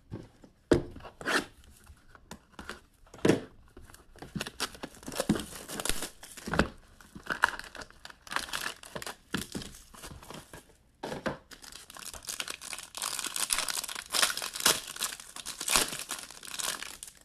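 Packaging of a new box of hockey cards being torn open by hand: sharp tearing and crinkling of wrapper and cardboard, scattered at first and then a near-continuous run of crackles and rustles until it stops suddenly at the end.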